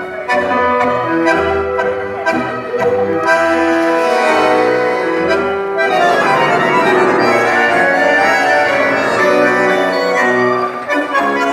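Tango orquesta típica playing an instrumental interlude led by bandoneons, with clipped chords on the beat at first and smoother, fuller held playing from about halfway through.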